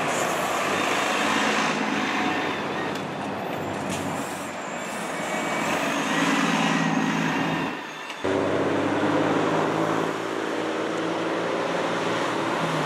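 City transit bus driving past close by: engine running with tyre and road noise. About eight seconds in the sound drops out briefly, then a steady engine drone goes on.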